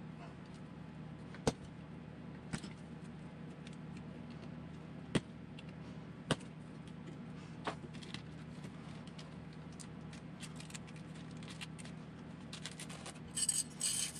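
Small plastic and metal RC kit parts being picked up and set down on a workbench: a few sharp, separate clicks, then a brief jingling rattle of small parts near the end, over a steady low hum.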